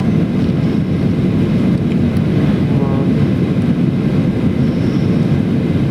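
Steady cabin noise inside a Boeing 737-800 with CFM56 engines: a constant low hum of engines and airflow, with no distinct events.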